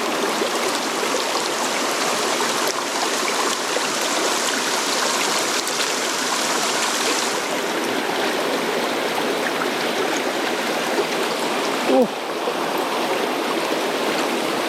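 Mountain stream water rushing steadily over rocks, a continuous even hiss, with one short vocal sound about twelve seconds in.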